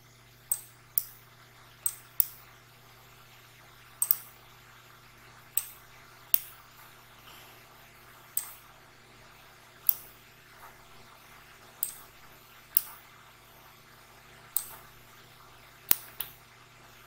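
Computer mouse button clicking: about fifteen sharp clicks at irregular intervals, some in quick pairs like a press and release, over a faint steady low hum.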